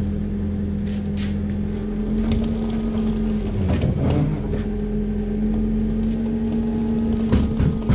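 Forklift engine running steadily while holding a heavy crated pallet on its forks, its note dipping briefly about four seconds in. Scattered clicks and knocks sound over it, the loudest a pair of knocks near the end.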